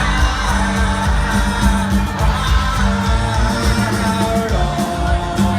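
Live rock band playing loudly between sung lines, with singing voices over the guitars and drums.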